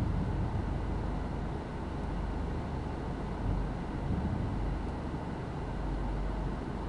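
Car's engine idling, a steady low rumble heard from inside the cabin while stopped at a light.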